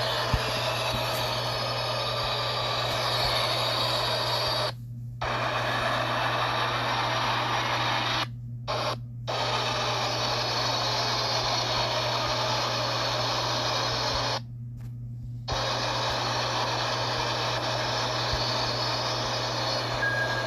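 Subway train running noise: a steady hiss and rumble over a constant low hum. The hiss cuts out briefly about five seconds in, twice around nine seconds, and for about a second near fifteen seconds, while the hum carries on.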